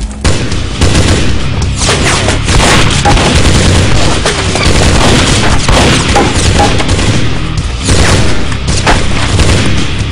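Rapid gunfire with booms, the shots overlapping almost without a break; it starts abruptly.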